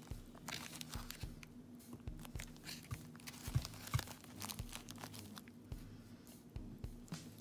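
Plastic bag crinkling and rustling in irregular bursts as it is handled, with two louder knocks about halfway through.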